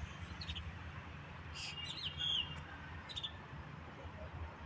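Birds chirping in short, high calls, a few at a time, loudest in a brief cluster about two seconds in, over a steady low rumble.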